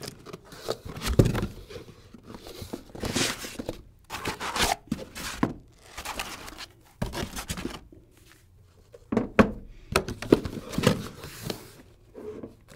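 A cardboard box being unpacked: irregular rustling and scraping of the cardboard flaps and foam packing inserts as they are opened and pulled out, with a few dull knocks as pieces are set down on the table.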